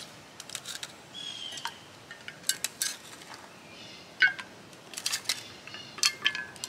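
Ice cubes dropped one at a time into a glass mason jar of liquid: a series of sharp clinks, the loudest a little past four seconds in.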